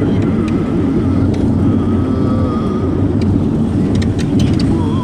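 Passenger minibus driving along, with steady engine and road noise heard inside the cabin and a few light clicks from its rattles in the second half.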